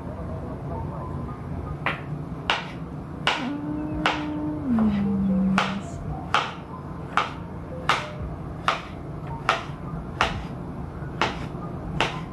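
Large chef's knife slicing mango on a cutting board, a sharp knock each time the blade meets the board, about every two-thirds of a second from about two seconds in. A held tone of about two seconds, which steps down in pitch partway, sounds in the middle.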